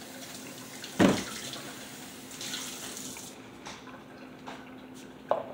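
Lemonade running out of a tilted plastic jug for about three seconds, then stopping. A sharp thump comes about a second in, and a short knock near the end.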